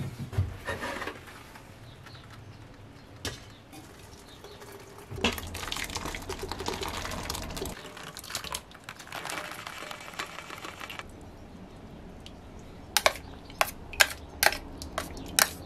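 Hot rhubarb water and pulp poured from a steel pot through a small wire-mesh strainer into a stainless steel bowl, a splashing pour lasting several seconds. Near the end comes a quick run of sharp metal-on-metal taps as a metal spoon works and knocks against the strainer over the bowl.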